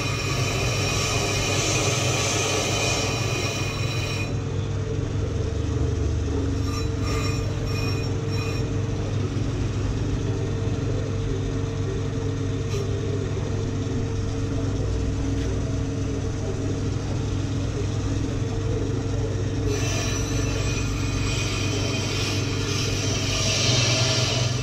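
Ammco 4000 brake lathe running with a steady motor hum while its cutting bits skim a glazed brake rotor, a hissing metallic scrape that fades about four seconds in and returns near the end.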